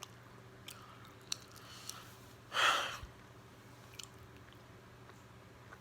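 A person chewing a burrito with the mouth close to the microphone: scattered small wet mouth clicks, and one louder, brief breathy burst of noise about two and a half seconds in.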